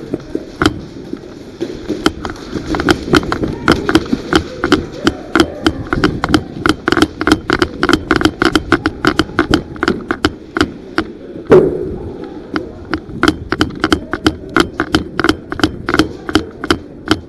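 Airsoft guns firing in rapid, irregular clacks and bursts, over a steady background of voices; one louder bang with a short ring about eleven and a half seconds in.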